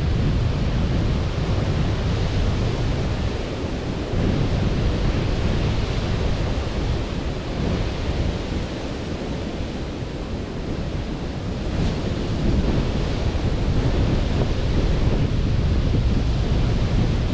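Sea waves washing onto a beach, the surf rising and easing over several seconds, with wind rumbling on the microphone.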